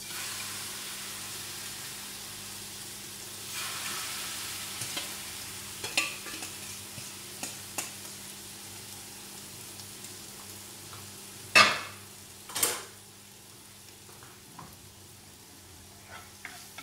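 Marinated chicken sizzling as it is tipped into a hot frying pan without oil, the hiss swelling about four seconds in, with light clicks of food and utensils. Two loud knocks come a second apart about twelve seconds in, and a spatula clicks against a pan near the end.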